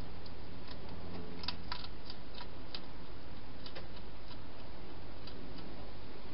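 Wild hedgehog chewing its food inside a plastic feeding box, heard as a run of irregular sharp clicks, most of them bunched about a second and a half to three seconds in, over a steady low hum.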